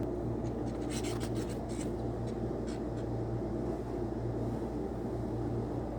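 Steady low mechanical hum, the loudest sound, with a cluster of short scratchy ticks about a second in and a few more around two to three seconds in.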